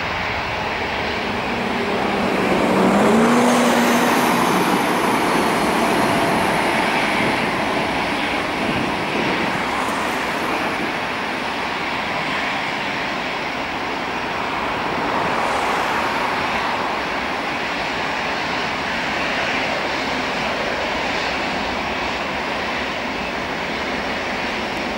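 Boeing 737-800's CFM56-7B turbofan engines at takeoff thrust during the takeoff roll and climb-out: a steady jet noise, loudest about three seconds in.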